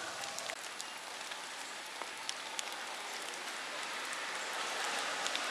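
Light rain pattering on leaves and wet ground: a steady hiss with scattered small drip ticks, growing a little louder near the end.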